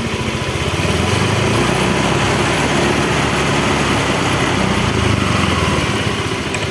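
Honda Vario 125 scooter's liquid-cooled 125 cc single-cylinder four-stroke engine running, getting louder about a second in and easing back near the end, in normal running condition.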